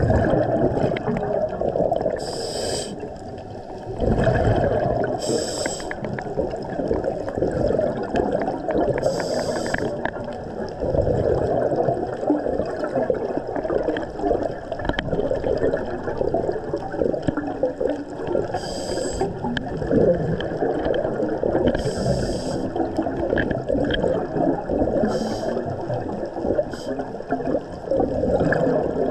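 Underwater sound of a scuba dive: a steady low rush of water, with short hissing bubble bursts every few seconds from a diver's regulator on the exhale.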